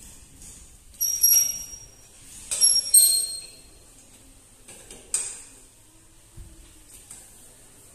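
Sharp metallic clinks, each with a brief high ring: one about a second in and two close together around the three-second mark, then a softer knock a couple of seconds later.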